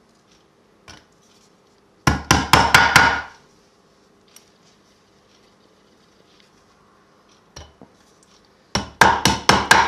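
Small hammer driving 10 mm fine tacks through cotton bottoming cloth into a wooden stool frame. A single light tap comes about a second in, then a quick run of about six blows, another light tap, and a second quick run near the end.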